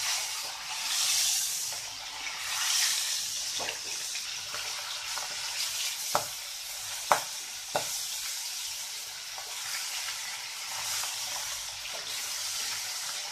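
Pieces of baghair (goonch catfish) rubbed with salt and turmeric are frying in hot oil in an aluminium kadai. There is a steady sizzle with sharp pops of spattering oil, the loudest three coming about six to eight seconds in. A wooden spatula moves the pieces around.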